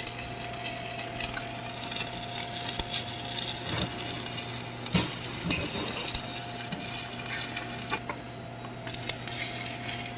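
Scattered light clinks and taps, like small metal or hard objects knocking together, over a steady hum.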